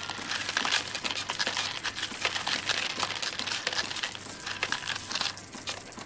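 A large handful of pennies clinking and rattling together, a dense, continuous run of small metallic clicks.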